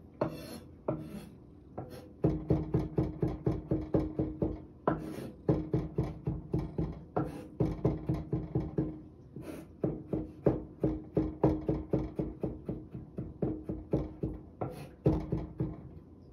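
Rhythmic chopping with a kitchen knife on a cutting board, about four strokes a second, in runs of a few seconds with short pauses. Each stroke has a low, ringing knock.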